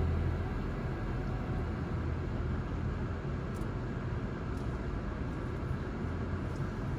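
Steady road noise from a car driving, a low, even rumble with no distinct events.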